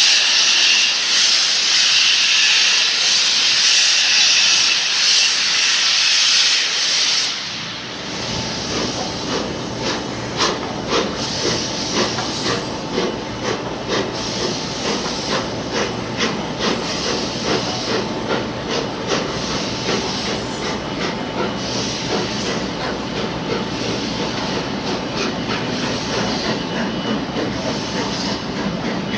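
Steam locomotive Tornado, an LNER A1 Pacific, hissing loudly as steam escapes. About seven seconds in the hiss fades and gives way to the rumble of the engine and its coaches rolling slowly, with irregular clicks of the wheels over rail joints and pointwork.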